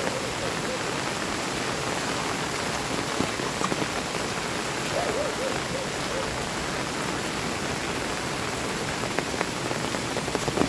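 Steady rain falling on the leaves and wet ground of a forest path, an even dense hiss.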